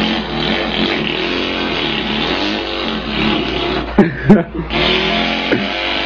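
A man imitating an engine with his voice: a steady buzzing hum, broken about four seconds in by two loud pops.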